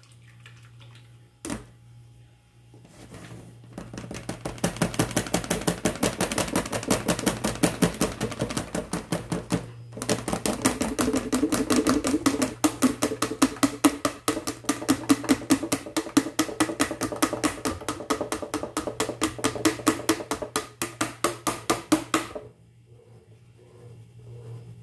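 A small colander being shaken to strain blended juice, rattling against its bowl in quick, even knocks, several a second. It pauses briefly midway and stops a couple of seconds before the end.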